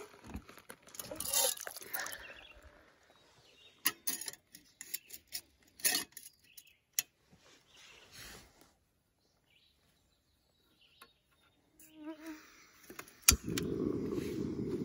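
Metal pot and stove parts knocking and clicking as a cooking pot is set onto a backpacking canister stove, then near the end a single sharp click and the gas burner lights and runs with a steady rushing sound.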